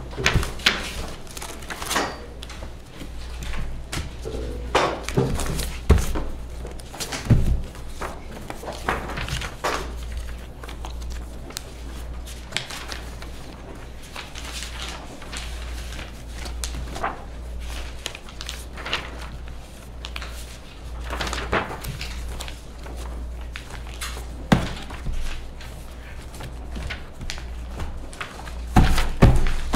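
Paper documents being leafed through and handled at a table: irregular rustles, page flips and light knocks, a few sharper ones standing out, over a steady low hum.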